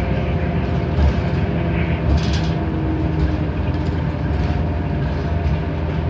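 Cabin noise of a NABI 31-foot low-floor bus under way: its Cummins Westport ISL G natural-gas engine and Allison B300R transmission run with a steady drone and road rumble. Low thumps come about one and two seconds in, and a short hiss a little after two seconds.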